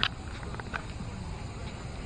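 Footsteps on a concrete floor: a sharp step right at the start and a lighter one about three quarters of a second later, over a steady low rumble on the action camera's microphone.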